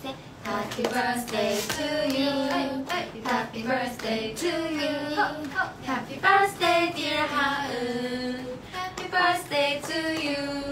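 Several young women singing a tune together with no instruments, clapping their hands along.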